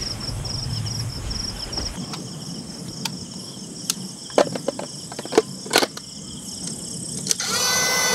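Insects chirping in a fast, even pulsing rhythm over a low rumble that stops about two seconds in. A few sharp knocks and taps come around the middle, and near the end a small motor starts a steady hum.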